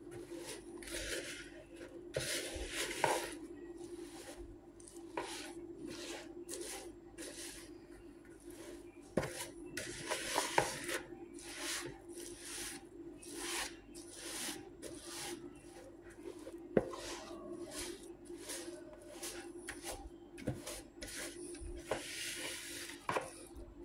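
Spatula stirring and scraping roasted sesame seeds and hot caramelized sugar around a plastic bowl: a long run of short scraping, rustling strokes, one or two a second, with a few sharper knocks against the bowl. A steady low hum runs underneath.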